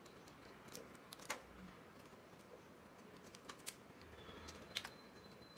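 Faint scattered clicks of scissors snipping a white corrugated plastic flexible hose, trimming it to size; about half a dozen small snips, the clearest a little over a second in and near the end.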